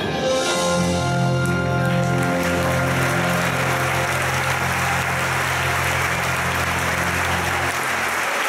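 An orchestra and band hold the song's final low chord while audience applause rises about two seconds in and swells over it; the held low notes stop near the end.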